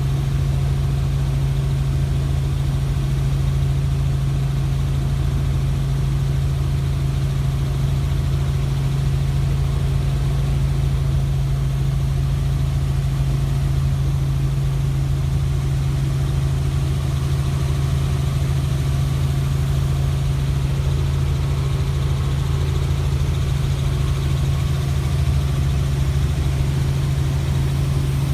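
Helicopter running steadily: an unbroken drone with a strong, constant low hum that does not change.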